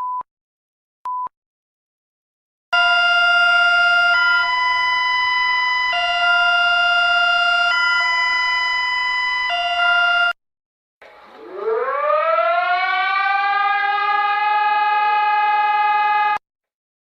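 Synthesized mock emergency-alert tones made in Scratch. Three short beeps come first. From about three seconds in, a steady electronic chord alternates between two pitches about every two seconds for some seven seconds. After a short gap, a siren-like tone winds up in pitch and holds for about five seconds before stopping.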